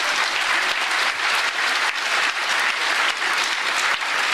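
Audience of schoolchildren applauding: dense, steady clapping from many hands.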